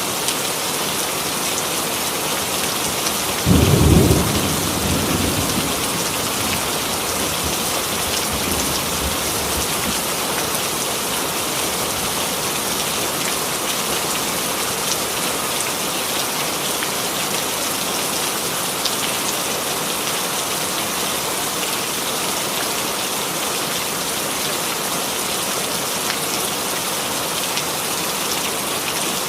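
Steady heavy rain hissing throughout. A thunderclap breaks in about three and a half seconds in and rumbles away over the next several seconds.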